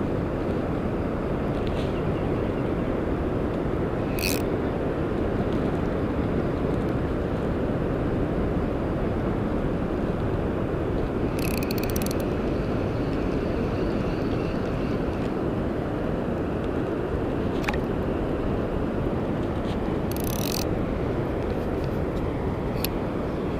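Steady low wind rumble on the microphone, with a handful of short sharp clicks scattered through it.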